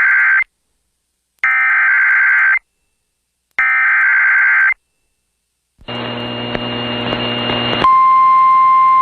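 Emergency Alert System SAME header: the end of one burst of warbling digital data tone, then two more bursts about a second long with short silences between. About six seconds in comes a rough buzzing noise for about two seconds. Then, near eight seconds in, a steady single-pitch alarm tone starts: the NOAA Weather Radio 1050 Hz warning alert tone announcing a new warning.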